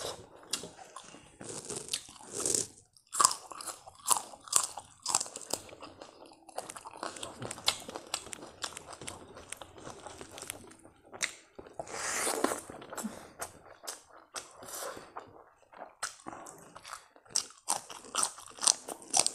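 Close-miked eating sounds: irregular sharp, crisp crunches and chewing as a mouthful of rice, pickle and raw spring onion stalks is bitten and chewed. There is a longer hiss about twelve seconds in.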